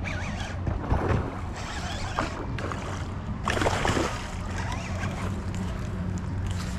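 A hooked bullseye snakehead thrashing and splashing at the surface close to the bank while a baitcasting reel is cranked in, with a steady low rumble underneath. The splashing comes in irregular surges, the strongest about a second in and again around the middle.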